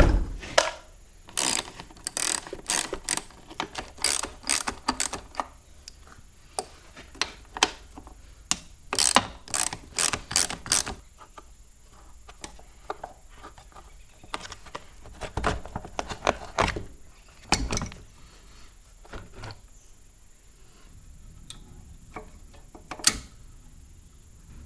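Hand work on a Predator 420 cc engine's plastic air filter housing as it is unbolted and pulled off to bare the carburetor. A quick run of sharp clicks and clacks lasts about ten seconds, then sparser knocks follow, with one loud knock near the end.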